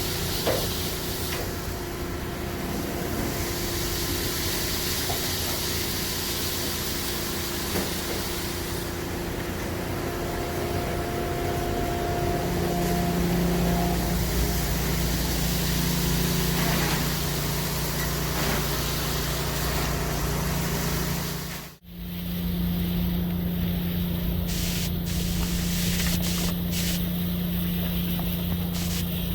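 Insulation removal vacuum running: a steady machine drone with a hiss of rushing air. It drops out for an instant about three quarters of the way through, then carries on.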